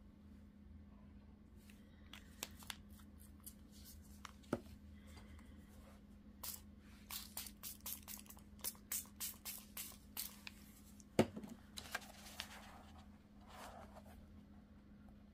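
Fairly faint run of quick, short spritzes from a mister bottle of walnut stain onto journal paper, several a second through the middle, mixed with paper handling and rustling, over a steady low electrical hum.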